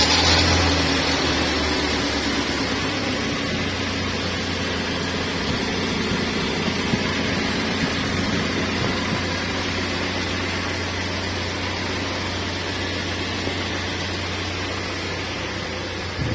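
Freshly overhauled UAZ engine idling steadily just after being started, a little louder in the first second then settling. It runs smoothly, which the mechanic calls running perfectly.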